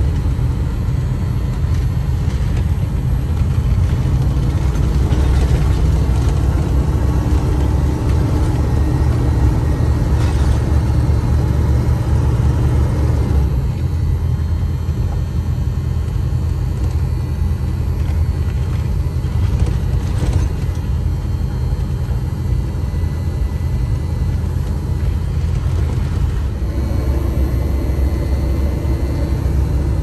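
Engine and road noise of a GMC motorhome under way, heard from inside the cab: a steady low drone.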